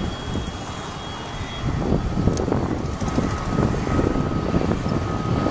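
Airbus A320neo jet engines heard from a distance as the airliner taxis on the runway: a low, uneven rumble, with a faint steady whine joining about two seconds in.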